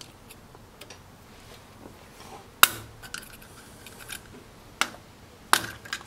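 A few sharp metal clicks and clinks of hand tools being handled at a forklift's front wheel hub nut and lock washer, the loudest about two and a half seconds in.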